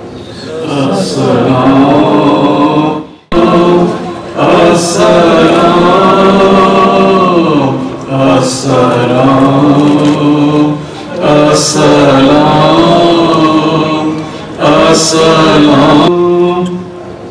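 Unaccompanied Islamic devotional chanting by several voices, melodic with long held notes and no instruments. It breaks off abruptly for a moment about three seconds in, then resumes.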